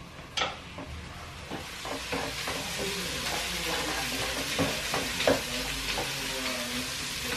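Onions frying in a hot pot: a steady sizzle that starts about a second in, with scattered clicks and scrapes of a utensil stirring against the pot.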